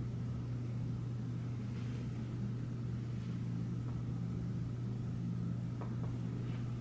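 Steady low hum under faint room noise, with a couple of faint soft ticks near the end.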